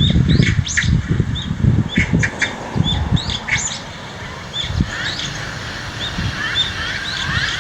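Small birds chirping over and over in short high calls, some rising in pitch, with a low irregular rumble under them for the first three seconds.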